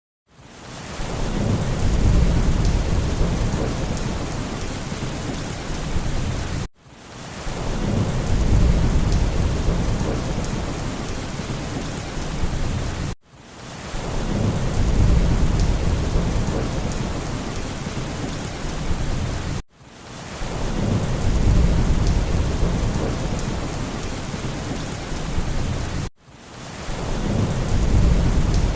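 Heavy rain with a low rolling rumble of thunder, as a short recording looped every six and a half seconds. Each pass swells in with the thunder, settles to steady rain hiss, then cuts off abruptly and starts again.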